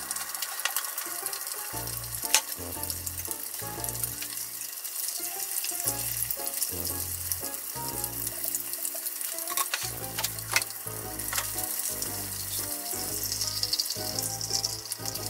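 Oil sizzling and crackling as breaded meat-wrapped rolls deep-fry in a small rectangular pan, with a few sharp clicks. Background music with a bass line plays throughout.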